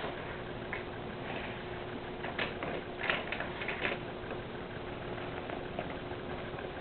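Ducklings peeping: a few short, high peeps a little over two seconds in and again between three and four seconds in, over a steady low hum.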